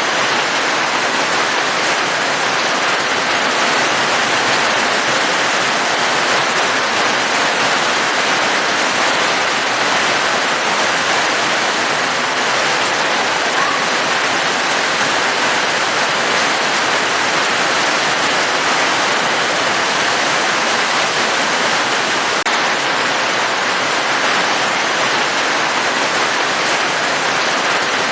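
Steady, even rush of falling water, with no breaks and no single drops standing out.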